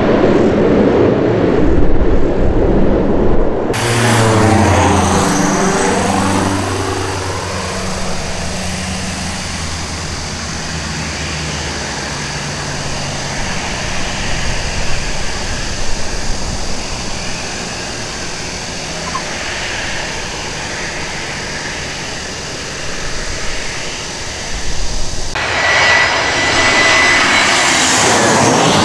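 Turboprop airliner rolling out on the runway after touchdown. Then a Diamond DA42-VI light twin on final approach: its two propeller engines drone, falling in pitch for a few seconds and then holding a steady note. Near the end a jet airliner comes in on approach, a loud rising rush with a thin whine.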